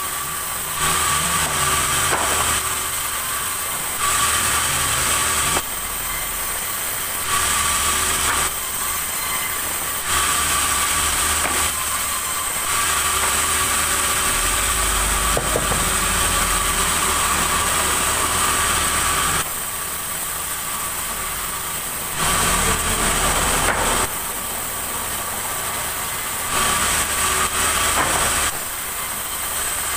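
Sawmill saw running and cutting timber: a steady mechanical whine with a high hiss over it, jumping abruptly louder and quieter every few seconds.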